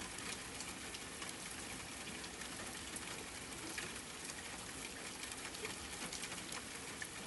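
Steady rain: an even, soft hiss of falling rain with faint scattered drop ticks.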